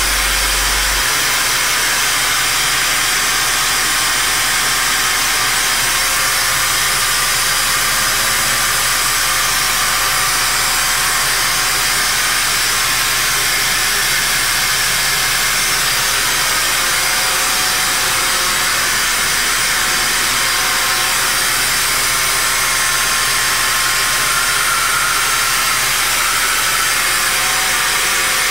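Steady, loud hiss of a vacuum motor pulling suction through a homemade jar-and-tube fluid vacuum, drawing old power steering fluid out of the reservoir.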